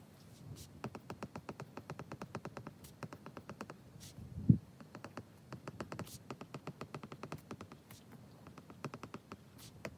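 Apple Pencil tip clicking on an iPad's glass screen during handwriting: two runs of quick taps, with one louder thump about halfway through.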